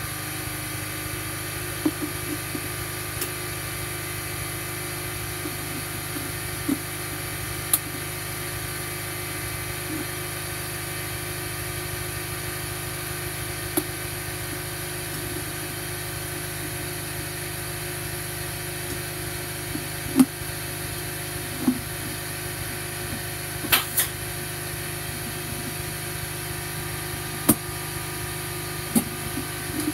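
Scattered light clicks and knocks of plastic animatronic head parts being handled and fitted by hand, over a steady background hum.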